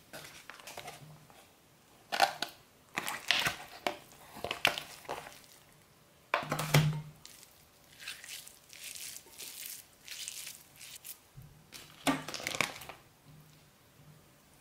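Hands handling raw minced meat and its plastic tray: irregular crinkling and crackling of the plastic packaging and squishing of the meat as it is pressed into a patty, coming in bursts with quieter spells between.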